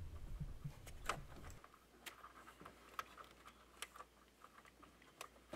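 Faint, scattered small plastic clicks, about five, as a blade fuse and a fuse tap are handled and pushed into an under-hood fuse box.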